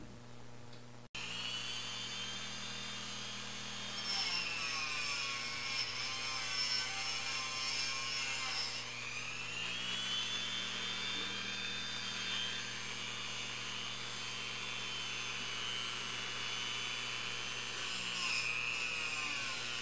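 Small handheld rotary tool with a fine wire-wheel brush whining steadily as it scrubs the edge-connector contacts of a Ford EEC-IV engine computer clean. It starts about a second in, and its pitch sags and recovers a few times.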